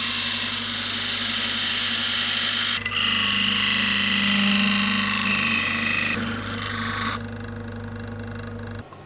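Wood lathe running with a steady motor hum while a narrow turning chisel cuts grooves into the spinning wooden blank, a loud scraping, hissing cut that changes tone a few times. The cutting stops about seven seconds in, leaving the lathe hum, which cuts off near the end.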